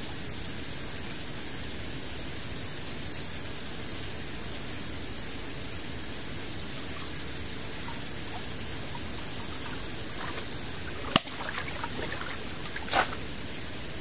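River water splashing and trickling as a man in an inner tube paddles and kicks through it toward the bank. Two sharp clicks come in the last few seconds.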